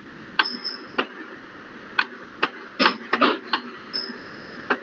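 Sharp clicks and taps, about ten at uneven intervals and bunched together a little before the middle, from the input device while handwriting on a digital whiteboard.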